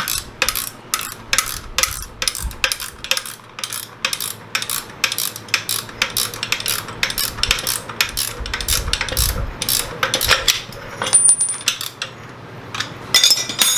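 Metal-on-metal clicking and clinking from hand tools working on car parts: a long run of sharp clicks, roughly three a second.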